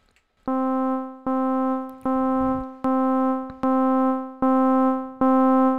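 Logic Pro's ES1 software synthesizer playing the same note C over and over: seven notes about three-quarters of a second apart, each starting sharply and fading away. The notes are at nearly even loudness, growing slightly louder towards the end.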